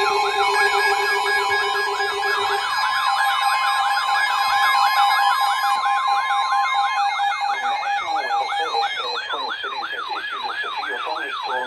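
Layered electronic siren and alert tones: a fast up-and-down siren sweep, about three to four cycles a second, over several steady alarm tones. The steady tones drop out one by one, and the sweep slows slightly near the end.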